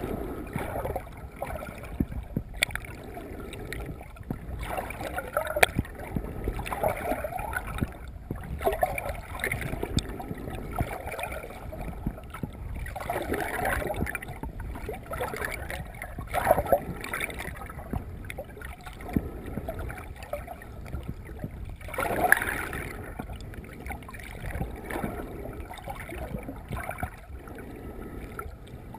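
Water gurgling and sloshing around a camera held underwater by a swimming snorkeler, coming in uneven swells every second or two, with a few sharp clicks.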